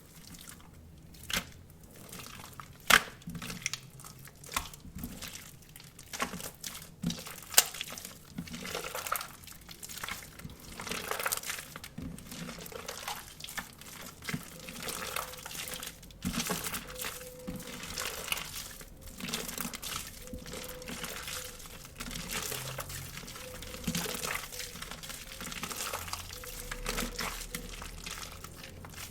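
Hands mixing water slime with the filling of a cut-open stress ball: wet squishing and crackling, with a few sharp crackles in the first eight seconds.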